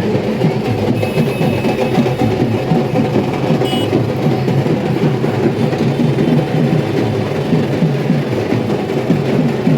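Many dhaks, Bengali barrel drums, played at once by several drummers: a loud, dense, continuous clatter of stick strokes with no single beat standing out.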